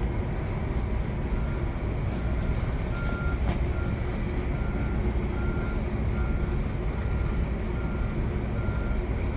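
A vehicle's reversing alarm beeping at a steady pace, about one and a half beeps a second, starting about a second in, over a steady rumble of street traffic.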